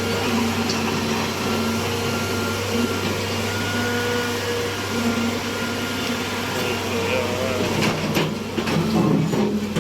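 Road cutting machine's engine running steadily with a constant hum, with a few knocks and clatters in the last two seconds.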